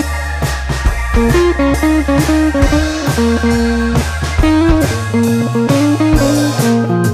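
Background music led by guitar with a bass line and a steady beat.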